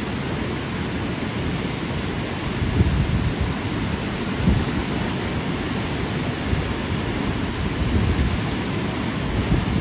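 Whitewater rapids rushing and churning through a concrete channel: a steady roar of turbulent water with a heavy low rumble.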